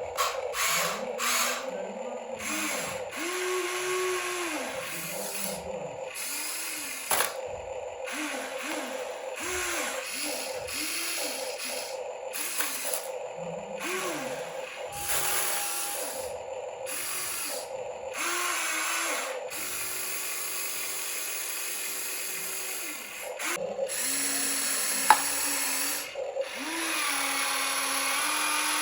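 Small electric motors of radio-controlled models whirring in many short spurts, each one's pitch rising, holding and falling as it is throttled up and down.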